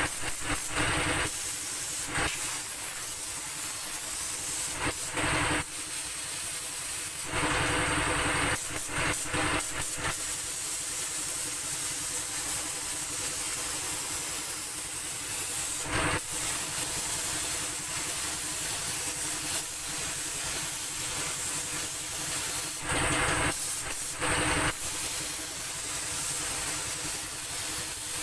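Compressed-air paint spray gun hissing as paint is sprayed onto a motorcycle body panel, the spray louder in several passes that start and stop, over a steady low machine hum.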